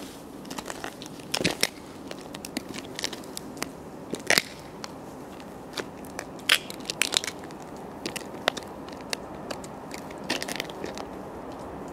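Buffalo platform boots stepping on gritty pavement: scattered sharp crunching clicks in small clusters over a steady low hiss.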